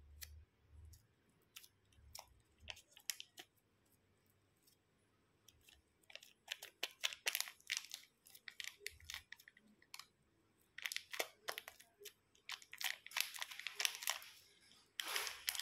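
Slime mixture being worked in a plastic bowl, giving clusters of small crackles and clicks, busiest in the second half. A steady hiss starts near the end.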